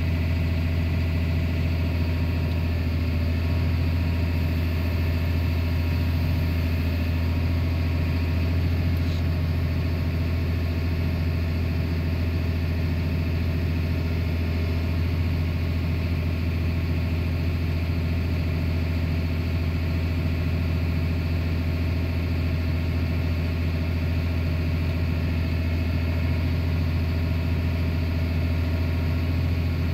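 Tractor engine running steadily at constant speed, heard from inside the cab, with a deep even hum while it powers the grain cart's unloading auger.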